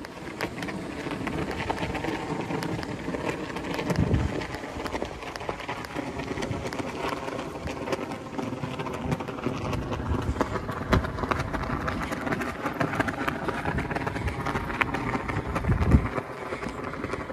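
Footsteps on a paved walkway with wind noise on the microphone, and two low thumps, one about four seconds in and one near the end.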